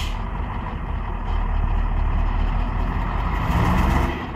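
Diesel engine of a loaded Iveco logging truck labouring as it climbs a muddy, rutted track, with a deep rumble that builds to its loudest about three and a half seconds in, then eases off near the end.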